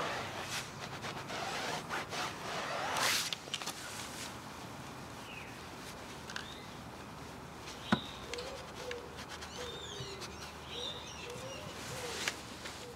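Microfibre towel rubbing and buffing over a tyre and plastic wheel trim in quick strokes for the first few seconds. Birds then call and chirp, with a single sharp click about eight seconds in.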